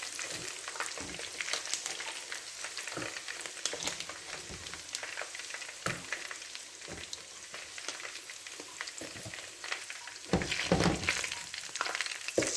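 Chicken deep-frying in hot oil, a steady crackling sizzle, with scattered clicks and knocks of a utensil against the pan and a louder clatter about ten seconds in.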